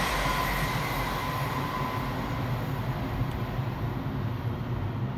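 Two coupled Class 387 electric multiple units passing at speed and running away into the distance, their rumble and rail hiss slowly dying down, with a faint high whine fading out in the first couple of seconds.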